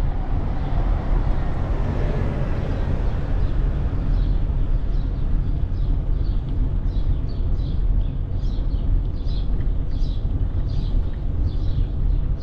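Steady low wind and road rumble from riding a bicycle, picked up by the rider's camera microphone. A passing vehicle swells and fades in the first few seconds. From about a third of the way in, birds chirp in short quick notes several times a second.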